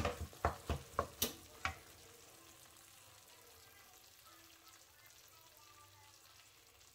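A wooden spoon scraping and knocking against a nonstick frying pan of browned minced beef, several sharp strokes in the first second and a half. Then a faint, steady sizzle from the meat in the pan, with the heat just switched off.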